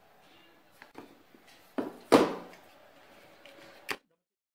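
A green plastic mixing bowl being handled on a granite countertop. There are a few light clicks, then two sharp knocks about two seconds in, the second the loudest, and a last click before the sound cuts out.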